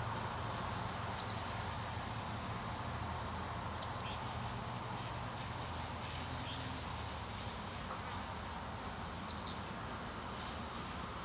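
Rural outdoor ambience: a steady hum of insects with a few short, high bird chirps, and a low hum in the background that fades out about halfway through.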